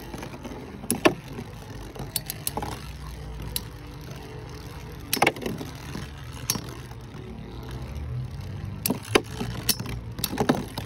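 Two Metal Fusion Beyblade spinning tops whirring in a plastic stadium, with sharp metallic clacks each time they strike. The clacks come a few seconds apart, with a quick cluster near the end.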